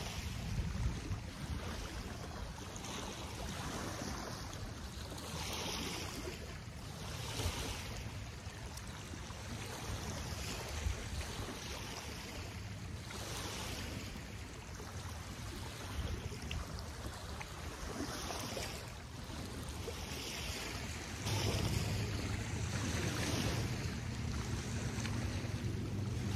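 Small lake waves lapping on a sandy shore, each wash rising and falling every second or two. Wind buffets the microphone, more strongly near the end.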